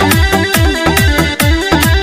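Electronic dance music with a fast, steady beat: deep kick drums that drop in pitch, crisp hi-hats and a synth melody.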